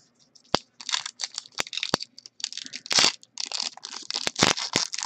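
Foil wrapper of a pack of baseball trading cards crinkling and tearing as the pack is opened. Rapid, irregular rustles with a few sharp clicks start about half a second in.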